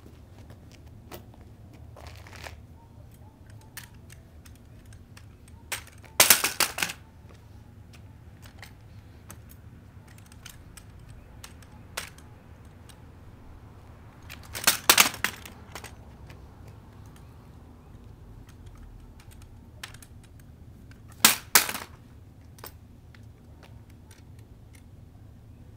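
Drill rifle being spun and caught by hand, with light knocks and clicks of hands striking the rifle throughout. Three times the rifle hits the pavement, each a loud clatter of several quick impacts lasting under a second: dropped rifles bouncing on asphalt.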